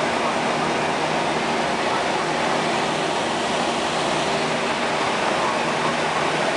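Steady cockpit noise of an Airbus A340-300: a broad, even rush with a low, steady hum underneath.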